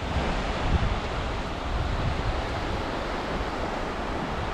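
Small waves breaking and washing up a sandy beach in a steady wash of surf, with wind rumbling on the microphone.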